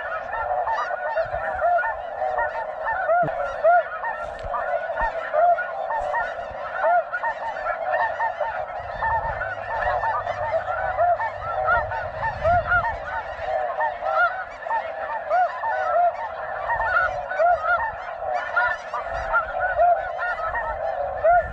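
Dense, continuous chorus of snow geese calling, many short overlapping high honks from a large flock.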